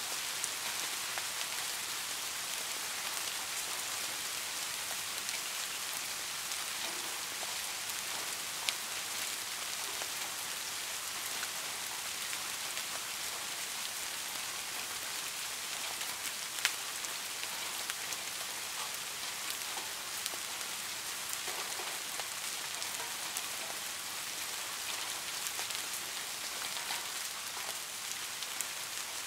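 Steady rain falling, an even high hiss of many drops with a few single louder drop ticks scattered through, two standing out.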